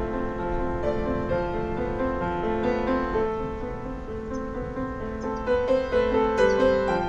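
Piano music, notes sounding and held in overlapping chords.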